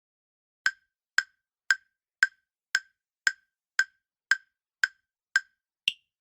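Countdown timer sound effect ticking during the quiz's answering time: eleven short, sharp ticks about two a second, starting about half a second in, the last tick higher in pitch.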